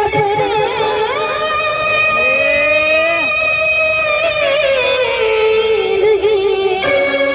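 Vaghya-Murali devotional folk singing: a voice holding long, wavering, ornamented notes over musical accompaniment.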